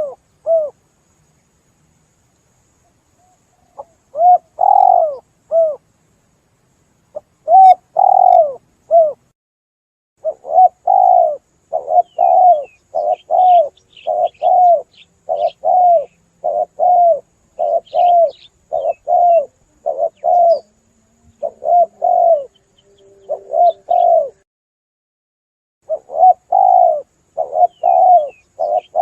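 Spotted doves cooing: short phrases of a few coos, each dropping in pitch, repeated one after another. After a few pauses early on they come thick and fast from about ten seconds in. Faint high chirps of small birds sound behind.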